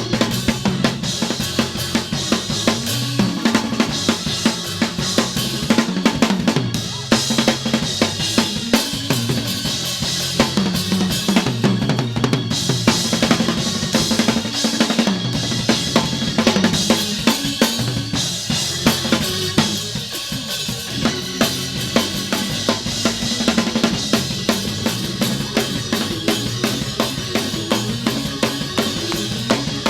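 Live church band playing a praise break: a drum kit with bass drum and snare keeps up a steady, driving beat over a walking bass line.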